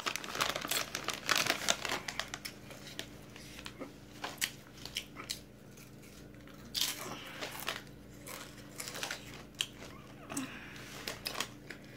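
Crinkling of a Takis chip bag as it is handled, with crunching as the rolled corn tortilla chips are bitten and chewed. The crackles are densest in the first couple of seconds, then come in scattered bursts.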